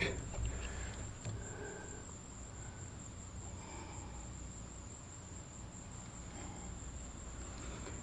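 Quiet outdoor background with a faint, steady high-pitched insect trill.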